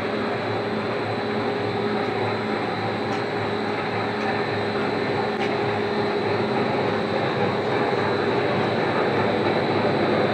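PP packing-strap extrusion line running, producing two straps at once: a steady machine drone with a constant hum and a faint high whine, even throughout and getting slightly louder near the end.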